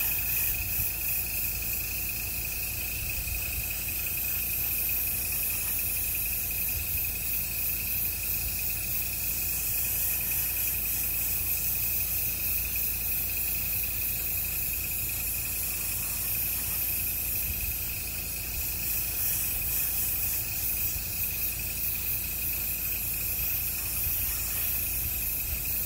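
Airbrush spraying paint: a steady hiss of air, with a steady high whine running beneath it.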